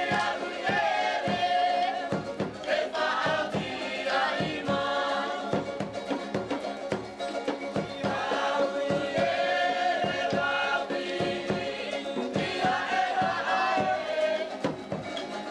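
Tahitian dance music: a group of voices singing together over a quick, steady beat.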